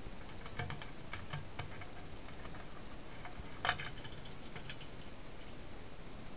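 Scattered light clicks and taps, with one sharper knock a little past halfway, over a steady background hiss.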